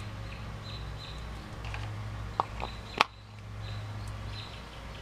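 Birds chirping in the background over a steady low hum. Two small clicks, then a sharp snap about three seconds in, from a hose fitting and plastic funnel being handled.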